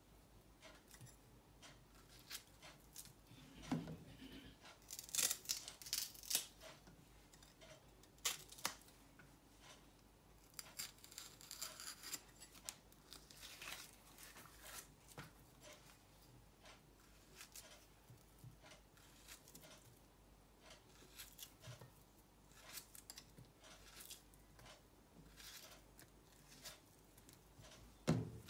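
Knife slicing through a ripe plantain held in the hand, with rounds dropping onto a plate: faint, irregular cutting strokes and soft clicks, busiest in the first half.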